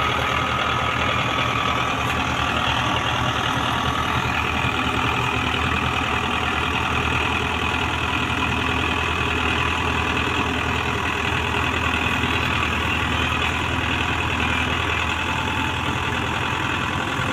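Tractor diesel engines running steadily at a constant pitch, with no revving.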